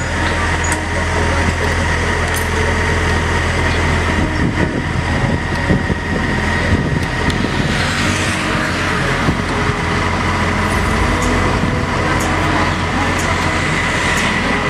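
Tatsuo EP80-8 wheeled excavator running steadily, with a steady high whine, as its hydraulic auger drills into the roadside. A vehicle passes close by about eight seconds in.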